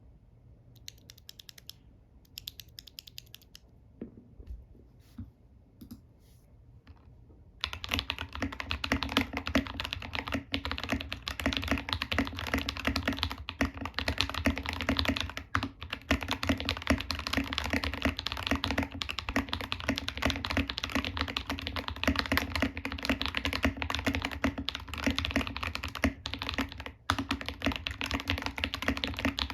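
Custom mechanical keyboard (RK61 ABS case, stock metal plate, lubed Akko Lavender tactile switches, PBT keycaps) being typed on with a thocky sound. A few faint, scattered key presses come first, then about a quarter of the way in fast, continuous typing starts and keeps going.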